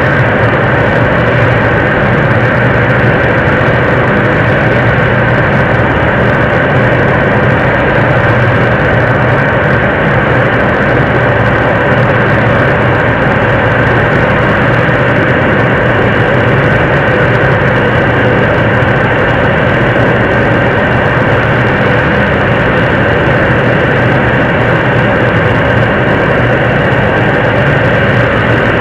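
Nuri third-stage 7-tonne-class liquid rocket engine firing steadily in an altitude-simulation test stand during a long-duration hot-fire test. It is a loud, even rushing noise with a low steady hum underneath, holding constant without any change.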